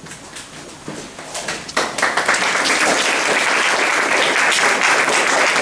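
Audience applauding, starting about two seconds in and going on steadily.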